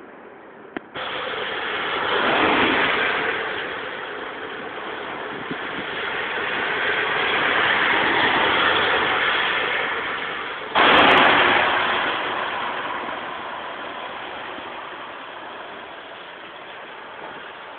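Traffic passing on a rain-wet road: a steady hiss of tyres on wet tarmac, swelling twice as vehicles go by. About eleven seconds in it jumps suddenly louder, then slowly fades.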